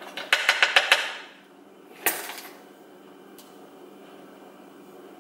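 A spoon tapped rapidly against the rim of a plastic food processor bowl to knock sago flour off it, about six quick clicks in the first second. There is one more sharp click about two seconds in.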